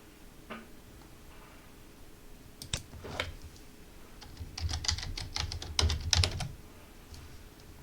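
Computer keyboard typing: a few separate keystrokes about three seconds in, then a quick run of keystrokes for about two seconds.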